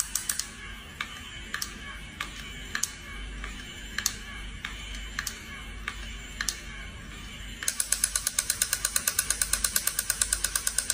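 Battery-powered crawling soldier toy's gear mechanism clicking. The clicks are rapid for a moment at the start, slow to about one every half second, then pick up again into a fast ratcheting clatter for the last few seconds.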